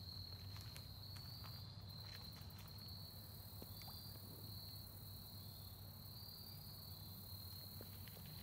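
Faint, steady high-pitched trill of an insect chorus, crickets or similar, over a low background rumble.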